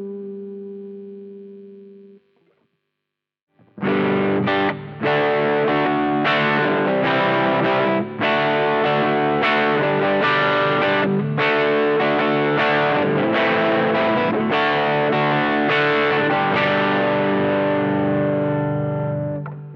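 Gibson Les Paul electric guitar played through a prototype FET overdrive pedal with asymmetric diode clipping, into a Blackstar HT5 valve amp. A held overdriven chord rings and fades, then is cut short about two seconds in. After a short pause, a strummed, distorted chord riff plays, with brief breaks between phrases.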